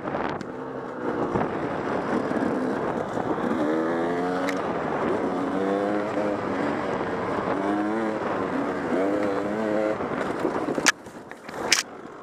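Enduro dirt bike engine running under throttle on a rough trail, its pitch rising in repeated surges. About eleven seconds in comes a sharp knock, the engine sound drops away, and a second knock follows a moment later: the bike going down in a crash.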